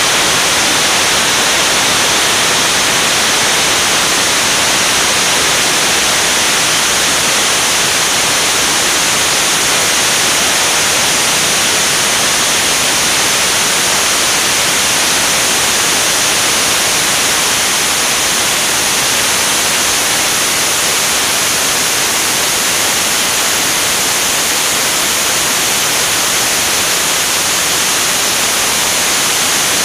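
Steady, loud rushing hiss of air streaming past a wing-mounted camera in flight, with no pitch and no change throughout.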